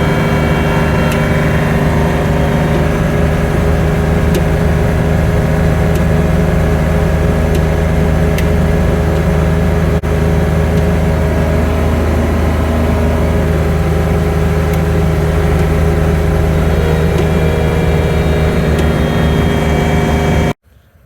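John Deere 1585 tractor's diesel engine running steadily while snow blowing, a constant loud drone that cuts off abruptly near the end.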